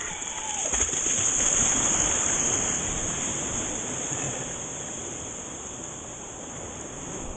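Small sea waves breaking and whitewater rushing up the sand, heard close to the water surface: a hissing rush that swells about a second in and slowly fades.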